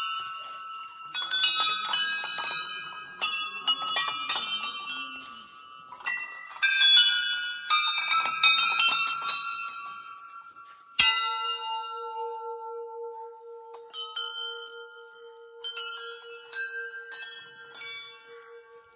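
Rows of small brass temple bells on railings ring in quick jangling clusters. About eleven seconds in, a large hanging brass temple bell is struck once and rings on with a long, pulsing hum, while a few small bells tinkle again near the end.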